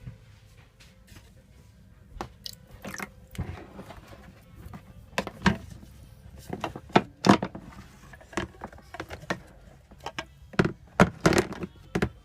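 Irregular clicks and knocks of hard plastic parts being handled, from a whole-house sediment water filter housing and its cartridge being worked on. The knocks come thicker and louder in the second half.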